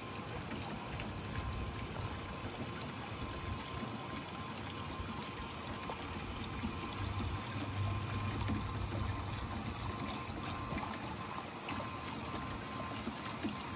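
Water pouring and running steadily through the Goldrop Miner gold separator as it processes sand, with a faint steady tone under the flow.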